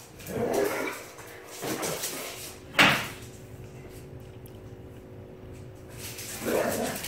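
Two dogs play-fighting: short bursts of scuffling and mouthing noises, with a sharp knock about three seconds in.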